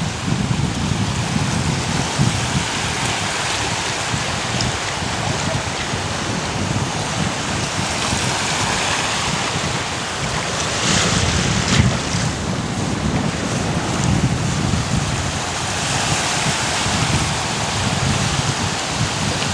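Wind buffeting the microphone in uneven gusts, over the steady wash of small waves breaking at the shoreline.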